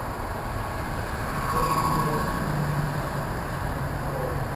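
Model train running on the layout track: a steady rumble and hum that swells a little about a second and a half in.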